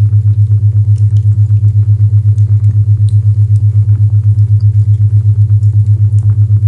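Isochronic tone: a loud low tone pulsing on and off evenly about eight times a second, with faint fireplace crackling over it.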